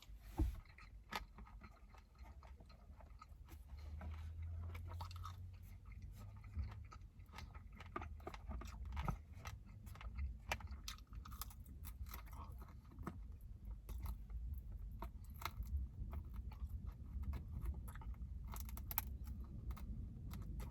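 A person chewing and biting sticky, sauce-coated fried chicken wings up close, with many short mouth clicks and crunches.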